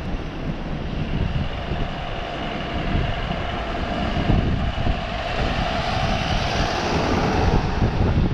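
A passing engine's steady whine, growing louder toward the end, over a low rumble of wind on the microphone.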